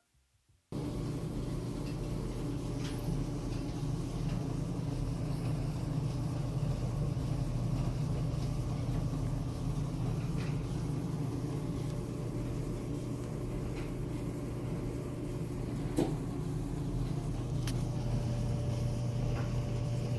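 Whirlpool clothes dryer running with a steady low hum and a few light clicks scattered through it; the sound cuts in abruptly about a second in.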